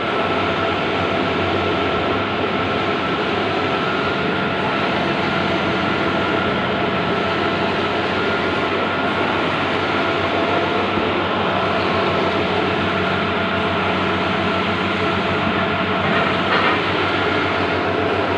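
Bluewin large-format outdoor banner printer running: a steady mechanical noise with a constant whine, briefly a little louder near the end.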